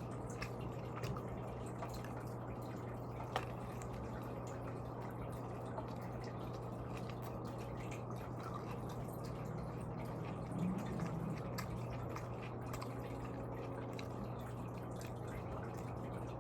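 Close, quiet eating sounds of a person chewing food: small wet mouth clicks scattered throughout, with a sharper click about three and a half seconds in. A steady low hum runs underneath.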